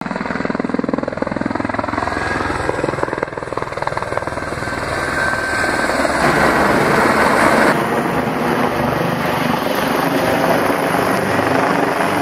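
Light helicopter flying low overhead, its rotor blades beating in a fast, even pulse under the engine noise. The sound shifts in tone about two-thirds of the way through.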